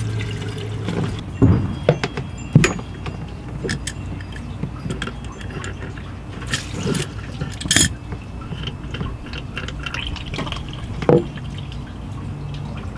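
Water running and dripping from the shower plumbing, with a few sharp knocks and clunks over a low steady hum.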